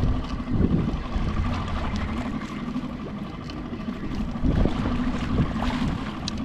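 Choppy water slapping against a plastic kayak hull, with wind buffeting the microphone. Two louder surges come about half a second in and about four and a half seconds in, over a faint steady hum.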